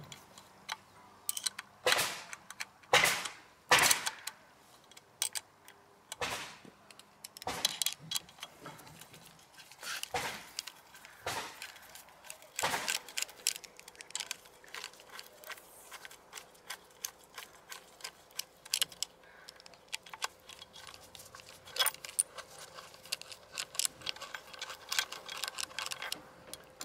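Metal hand tools clicking and clinking against steel bolts in irregular sharp ticks and knocks, with a quicker run of clicks near the end: a size 10 wrench and then a socket on an extension loosening the four bolts of an outboard's water pump housing.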